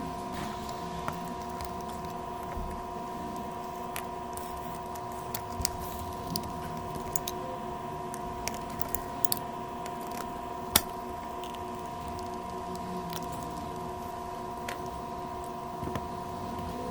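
A steady electrical hum with a few held tones from bench equipment, with scattered light clicks and taps of small tools on a circuit board, one sharper click about eleven seconds in.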